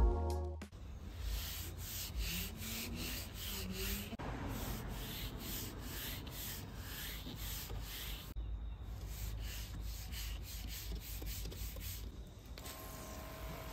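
Bare fingertips rubbing back and forth over a car's painted hood and door panels in a quick series of strokes, feeling the paint for bonded contamination before claying.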